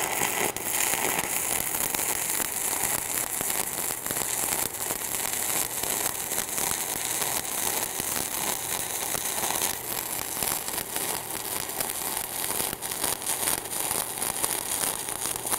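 Stick-welding (shielded metal arc) arc crackling steadily as a flux-coated rod runs a straight bead on steel plate, starting right at the strike and holding even and unbroken throughout.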